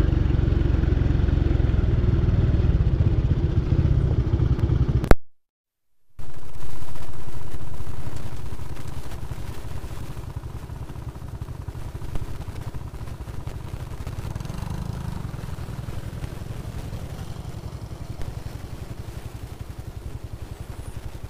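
Small motorcycle running on a dirt road, its engine and rumble loud, then cut off briefly by an edit. It comes back loud and settles to a steadier, quieter engine hum from about ten seconds in.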